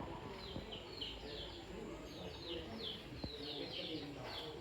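Small birds chirping steadily: a rapid series of short, high, falling chirps, several a second, with a low background underneath.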